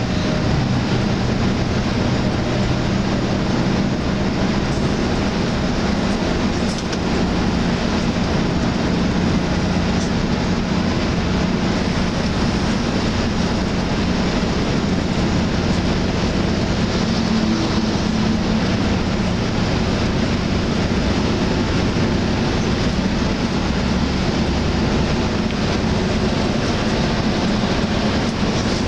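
Steady cabin noise of a Hyundai Universe coach cruising at highway speed: a constant low engine drone under loud road and wind rush.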